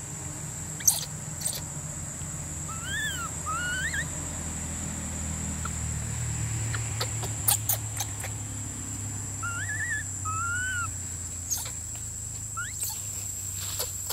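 Short chirping animal calls, rising and falling in pitch, in two brief clusters about a second in and again near the ten-second mark. They sound over a steady high-pitched whine, with a few light clicks and a low rumble.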